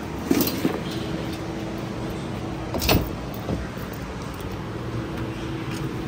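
Stock steel muffler being handled and set down into a car trunk: a few sharp knocks, the loudest about three seconds in, over a steady low hum.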